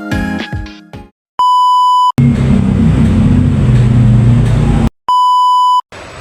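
Background music fades out about a second in. Then two steady electronic beep tones, each under a second long and at the same pitch, come either side of about three seconds of loud, low rumbling noise.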